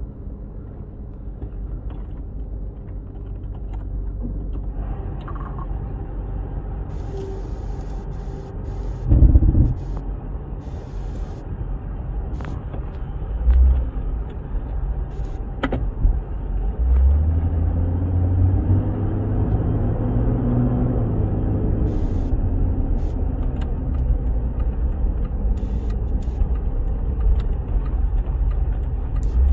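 1996 Jeep Cherokee engine and road rumble heard from inside the cabin while driving. The engine's pitch rises and then falls about halfway through as it accelerates. Two dull thumps come earlier.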